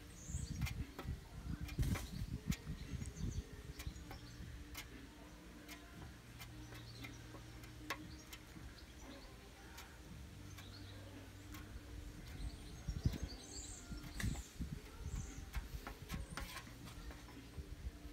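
Faint scrapes and clicks of a plastic spreader working body filler over a painted panel, with small birds chirping now and then in the background.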